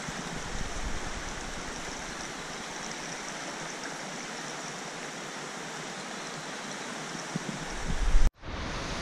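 Steady rush of a shallow, stony stream running around the wader's legs. Near the end a low rumble builds, then the sound cuts out abruptly for a moment before the water noise returns.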